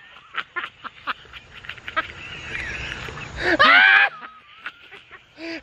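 A man lets out a short, loud yell about three and a half seconds in. Before it come scattered knocks and rustling from the two men grappling.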